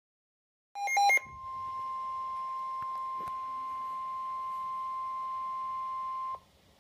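A weather radio receiver gives a quick burst of beeps, then sounds the NOAA Weather Radio 1050 Hz warning alarm tone: one steady tone held for about five seconds over faint radio hiss, then cut off abruptly. The tone marks the start of a warning-level alert broadcast.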